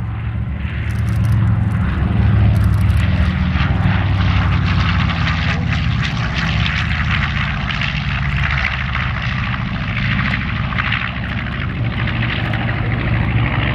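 B-25 Mitchell bomber's twin Wright R-2600 radial engines and propellers on a low pass, a loud steady drone that swells about two seconds in and holds.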